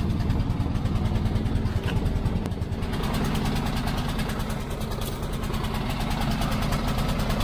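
Briggs & Stratton petrol generator engine running rough, which the owner takes for a fuel issue: the engine starving of fuel, from the carburettor or a blockage.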